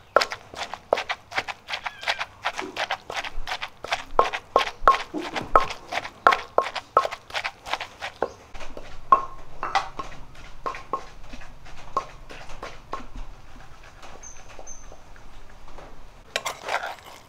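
A wooden pestle pounds frog meat and dried chilies in an earthenware mortar, making a steady run of dull thuds at about three a second. The strokes become sparser and softer after about eight seconds.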